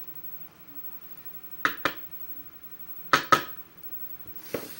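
Small metal lock parts clinking as a lock's pins and springs are taken out by hand: two pairs of quick, sharp clicks, then a softer one near the end.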